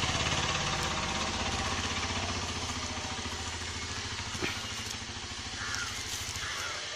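An engine running with a steady, rapid pulsing beat that slowly fades. A single sharp click comes about four and a half seconds in.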